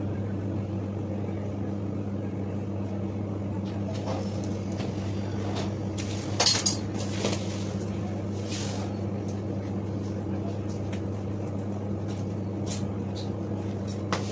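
A brief clatter and clinks of metal kitchen utensils about halfway through, with a faint click near the end, over a steady low electrical hum.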